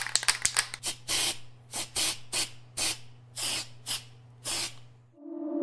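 Aerosol spray paint can hissing in a dozen short bursts, rapid at first and then about every half second, over a steady low hum. Near the end a rising swell begins.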